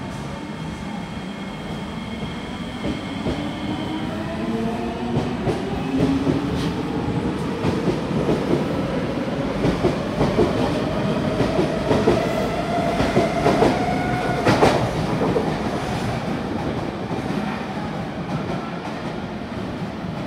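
Kawasaki–CSR Qingdao Sifang C151A electric metro train pulling away and accelerating: its traction motors whine, rising steadily in pitch as it gathers speed, while the wheels click over rail joints. The sound eases off in the last few seconds as the train draws away.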